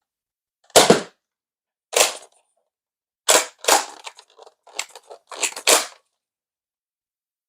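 Nerf Rival Takedown pump-action foam blaster being primed by working its pump: a series of sharp plastic clacks and snaps, about seven, in irregular groups with softer rattling between them.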